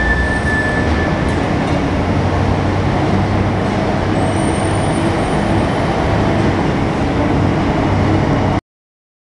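Kalmar 45-ton heavy forklift's diesel engine running steadily while it carries a load, in a loud, constant forge-shop din with a low hum; a high steady whine fades out about a second in. The sound cuts off suddenly near the end.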